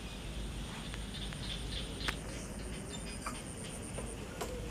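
Quiet outdoor background with a steady low rumble and a faint high pulsing trill near the middle. A single sharp click comes about two seconds in.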